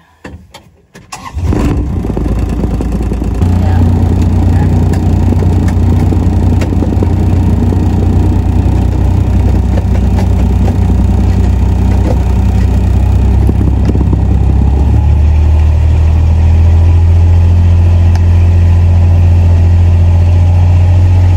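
Small utility vehicle's engine starting about a second in, then running steadily with a low hum as it drives off slowly, a little louder from about three seconds in.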